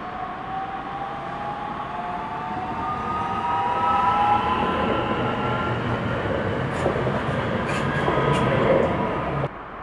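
Bombardier Talent 2 (DB class 442) electric multiple unit accelerating past, its traction drive whining in a rising pitch as it speeds up. A few sharp wheel clicks come as it passes closest. The sound cuts off suddenly near the end.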